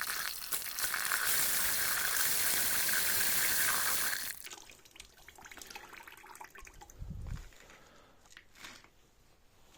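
Pressurised water hissing out of a newly fitted valve on a cut water pipe as it is opened to test the line, for about four seconds, then shut off suddenly. A few faint knocks and a low thump follow.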